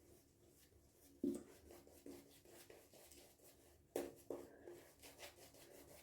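Faint, soft swishing strokes of a silvertip badger shaving brush painting very wet, over-hydrated lather onto the face, with a slightly louder stroke about a second in and another about four seconds in.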